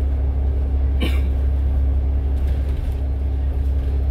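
Steady low drone of a bus's engine and tyres on the road, heard from inside the moving bus, with a short sharp noise about a second in.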